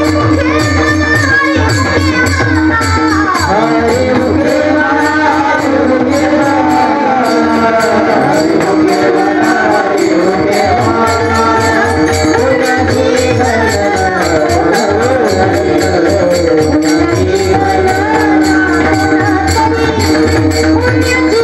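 Varkari kirtan music: devotional singing with small brass hand cymbals (taal) ringing out a fast, steady beat over a drum and a held drone.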